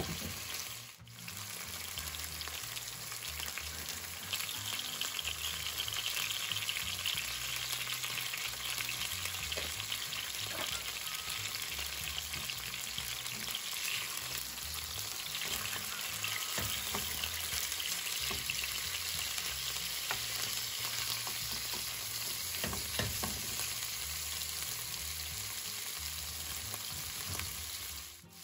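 Veal shanks sizzling steadily as they sear in hot olive oil with sliced onion and garlic in a frying pan, a little louder from about four seconds in. A few light taps and scrapes of a spatula are heard as the shanks are turned.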